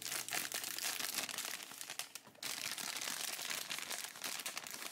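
Clear plastic bag crinkling and crackling as it is opened and a hand reaches in to pull out the small fabric clothes, with a brief lull a little past two seconds.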